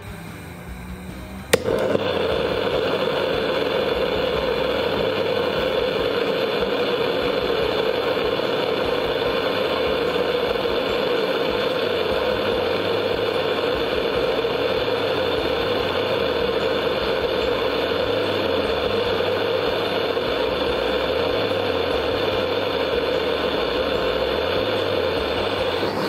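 Handheld propane torch clicks alight about a second and a half in, then burns with a steady hiss into the side hole of a freshly cast plaster-and-sand forge body, heating it, until it is shut off abruptly at the very end.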